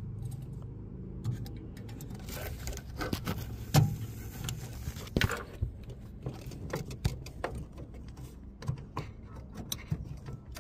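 Scattered small clicks, knocks and scrapes as a replacement headlight bulb is handled and pushed into its socket in an Audi Q5's headlight housing.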